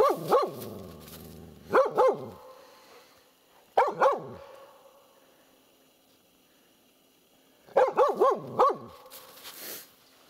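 Laika hunting dog barking while searching out game at a hole in the snow: two pairs of short barks, a pause of a few seconds, then a quick run of about five barks.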